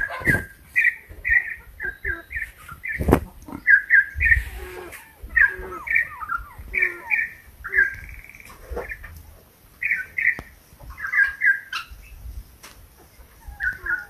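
Campo troupial (currupião) singing: short whistled notes in quick pairs and triplets, phrase after phrase with brief gaps. A couple of sharp knocks, at the start and about three seconds in, and a low rumble sit underneath.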